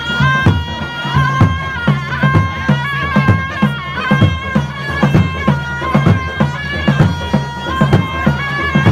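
Music: a high melody of held notes stepping up and down over a steady drum beat of about two hits a second.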